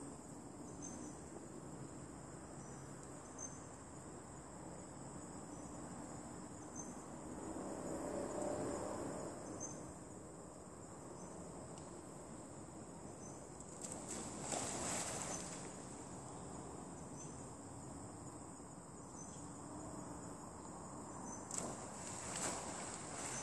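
A steady chorus of insects trilling high, with regular pulses in it. Near the end come two short sharp sounds, as a macaque drops from the branch into the water.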